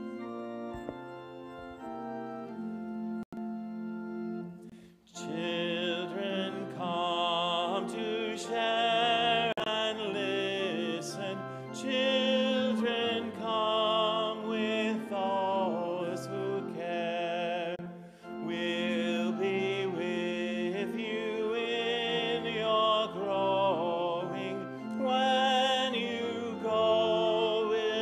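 Organ playing held chords, then about five seconds in voices begin singing a hymn with vibrato over the organ accompaniment.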